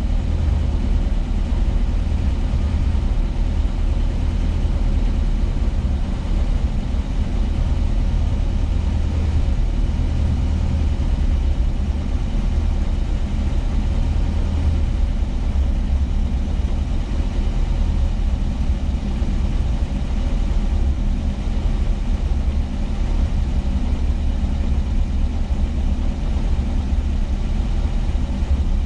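Volkswagen Kombi van's engine running steadily on the move, a deep, even drone with no change in revs.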